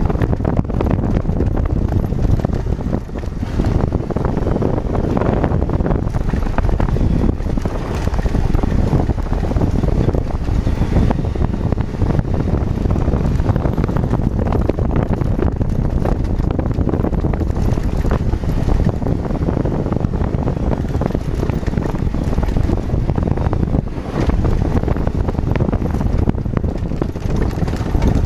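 Steady wind rumble on the camera microphone over the running engine of an adventure motorcycle riding a gravel dirt road.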